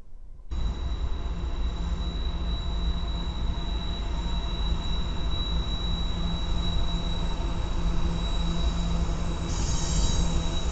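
Diesel freight locomotives (Norfolk Southern and BNSF units) rolling through a tight curve, starting abruptly about half a second in. A low engine rumble runs under a steady, high-pitched wheel-flange squeal, with brief brighter squeals near the end.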